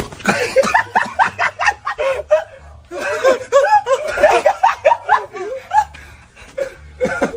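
People laughing hard in runs of rapid, pitched 'ha-ha' pulses, with two short breaks in the laughter.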